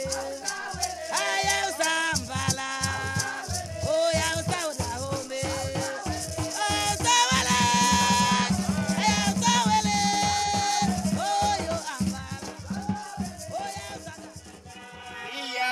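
Title music: a song with a shaker rattling a fast, steady rhythm over a pulsing bass and a bending melody line. The bass drops out and the music thins near the end.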